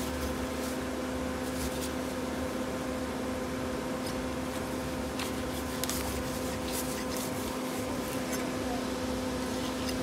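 A steady mechanical hum, with a few faint sharp clicks from a machete working through a permit fish as it is cut into steaks.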